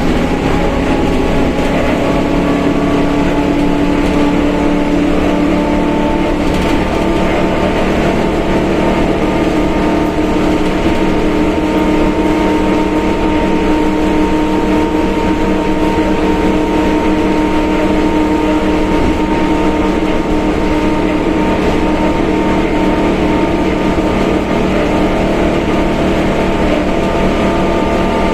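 Mercedes-Benz OF1721 BlueTec 5 bus under way, its engine and running gear steady, with the differential droning loudly as a held whine over the rumble.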